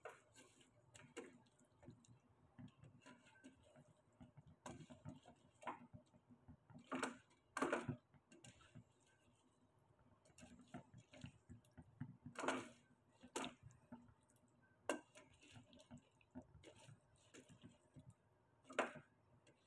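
Quiet, irregular scrapes and clinks of a spoon against a metal pressure cooker pot as chunks of cauliflower and potato are stirred, with a handful of louder knocks spread through.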